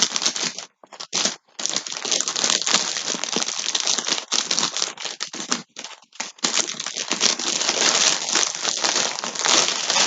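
Plastic packaging crinkling and rustling as yarn skeins are handled, with short pauses about a second in and again about six seconds in.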